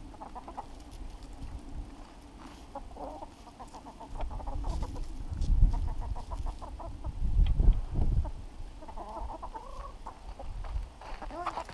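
Hens clucking on and off in short runs of calls, with two brief low rumbles in the middle.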